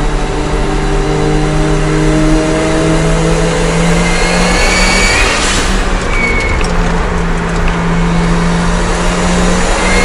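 Daihatsu Copen's 660 cc turbo engine pulling hard under acceleration, its pitch climbing, dropping at an upshift a little past halfway, then climbing again. A high whine from the dog-gear transmission rises with it, and a brief rush of air comes at the shift.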